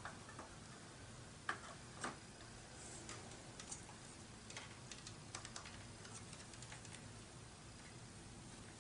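Faint scattered clicks and taps of a RAM memory module being handled and pushed into its slot on a Mac Pro memory riser card, the two clearest clicks about one and a half and two seconds in.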